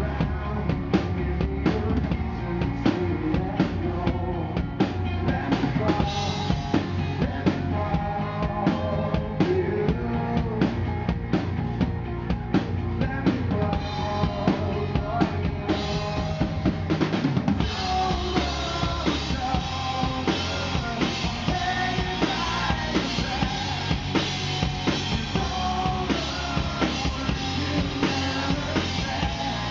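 Live rock band playing: a drum kit with steady kick and snare, electric guitar and keyboards, with a man singing lead. The sound gets fuller and brighter a little past halfway.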